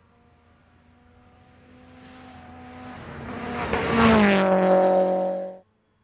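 Rally car's engine approaching flat out on a gravel road, its steady note growing louder for about four seconds. It then passes close with a loud rush of tyre and gravel noise and the engine note drops in pitch, before the sound cuts off suddenly near the end.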